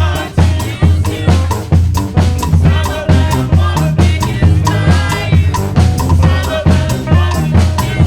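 Street brass band playing a song: brass horns over a low bass line and a steady drum beat.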